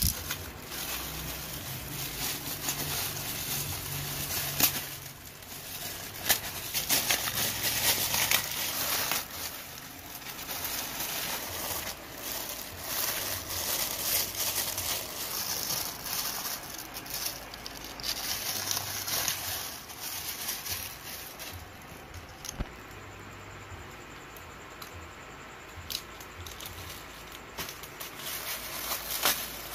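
Plastic packaging crinkling and rustling as it is handled: a poly mailer being cut and pulled open and clear plastic bags being turned over and unwrapped, with irregular crackles throughout. The crinkling thins out for a few seconds near the end.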